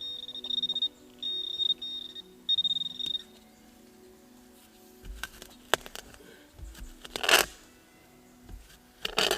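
Metal detector sounding a steady high tone over a buried metal target, three long beeps in the first three seconds. From about five seconds in come the scrapes and crunches of digging in forest soil, with two louder rushes of earth near seven and nine seconds.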